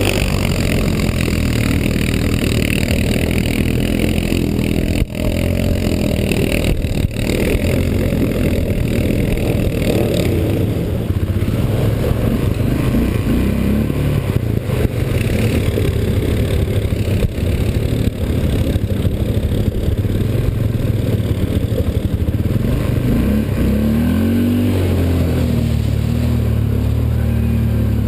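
Quad bike (ATV) engine running steadily close by, with a single knock about five seconds in; near the end the engine revs up and down as the quad drives into a river.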